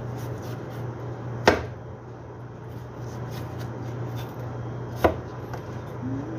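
Kitchen knife cutting produce on a plastic cutting board: two sharp knocks of the blade striking the board, about a second and a half in and again around five seconds, with lighter taps and clicks between. A steady low hum runs underneath.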